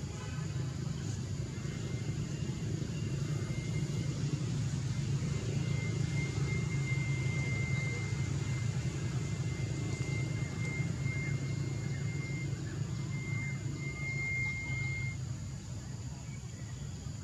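Steady low rumble, with a thin, high, steady tone that comes and goes from about two seconds in until about fifteen seconds in.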